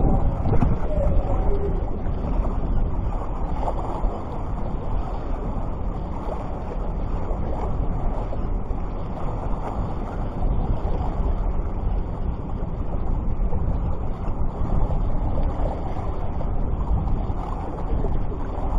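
Wind blowing steadily across the microphone, with surf washing on the beach behind it.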